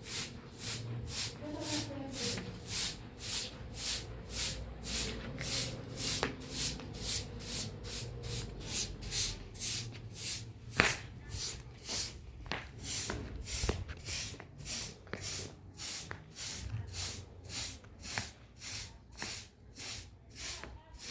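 Steady rhythmic swishing strokes, about two a second, like something being brushed or rubbed back and forth, with one sharper knock about eleven seconds in.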